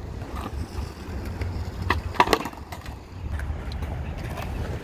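Skateboard wheels rolling over a concrete skatepark surface with a steady low rumble, with two sharp board knocks about two seconds in.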